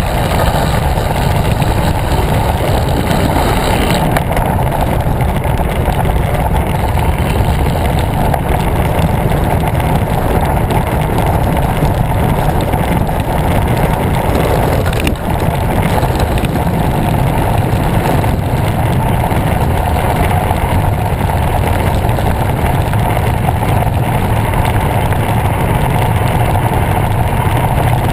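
Wind rushing over the microphone of a bike-mounted camera while a road bike rolls along at speed: a loud, steady low rush with no engine note, briefly dipping about halfway.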